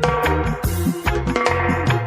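Music played loud over a sound system under test, with a deep, heavy bass line and a steady drum beat.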